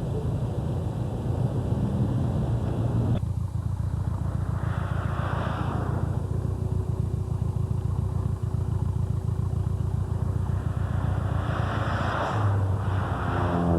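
Engine exhaust running with a steady low rumble. There is a sudden change in tone about three seconds in, and the revs rise near the end.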